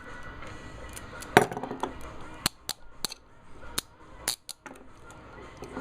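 Steel Blue Line handcuffs being handled, giving a series of sharp, irregular metal clicks, about seven or eight over three seconds.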